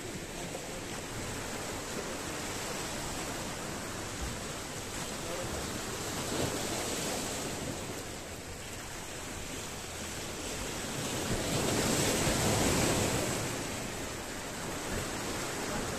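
Sea waves surging and washing among the concrete tetrapods of a breakwater, a steady wash that swells twice, loudest about twelve seconds in.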